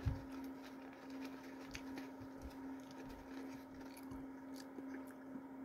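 Faint crinkling and small clicks of a cardboard meal box and fry carton being handled as fries are pulled out, over a low steady hum. A soft thump right at the start.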